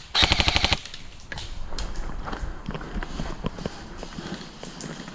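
Airsoft gun firing one short full-auto burst of about ten rapid shots, lasting about half a second. Softer scattered clicks and rustling follow.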